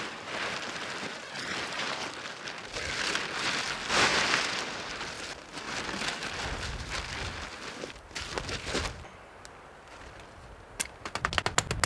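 Blue plastic tarp rustling and crackling in waves as it is unfolded and spread on the ground, with wind buffeting the microphone. A quick run of sharp ticks comes near the end.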